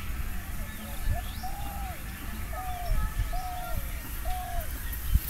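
A bird calling in a run of five or six short, arched whistled notes, about one a second, over a low rumble.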